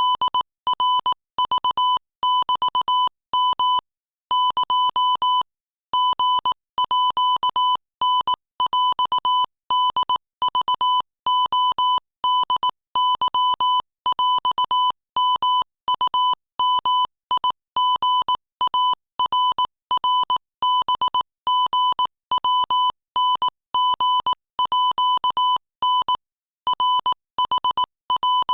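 Morse code sent at 22 words per minute as a single steady beep of about 1 kHz, keyed on and off in quick dots and dashes with short gaps between characters. There are brief pauses about 4 seconds in and near the end.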